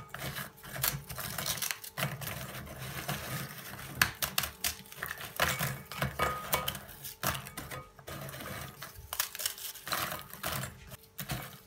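Dry rectangular tea biscuits being snapped and broken by hand into pieces in a glass bowl: a stream of irregular crisp cracks and clicks.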